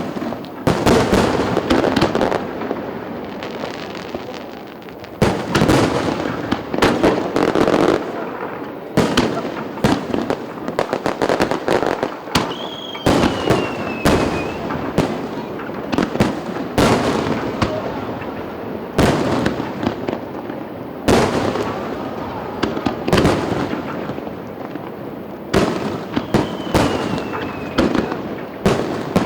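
Aerial fireworks bursting: loud bangs one after another in clusters, with crackling between them. A falling whistle sounds twice.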